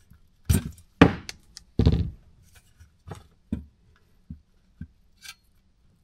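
Wire strippers snapping shut on insulated wire as the insulation is stripped off: three sharp snaps in the first two seconds, then several fainter clicks.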